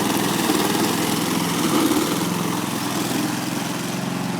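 Petrol lawn mower engine running steadily at a fast idle after being primed and pull-started.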